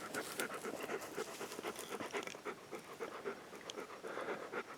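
Black Labrador retriever panting rapidly and evenly, about four to five breaths a second.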